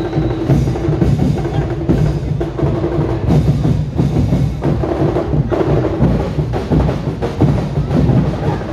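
Festival tribe percussion band, many drums and other percussion beating loudly and continuously in a steady beat.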